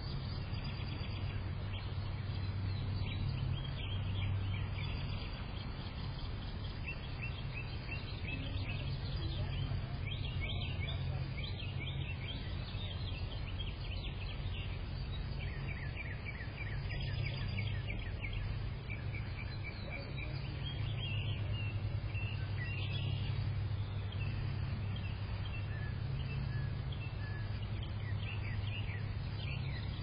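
Wild songbirds singing in short phrases of quick chirps every few seconds, over a steady low hum of background noise.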